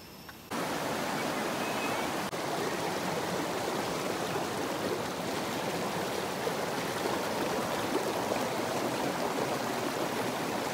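Shallow stream rushing and splashing over rocks, a steady rush of water that starts suddenly about half a second in.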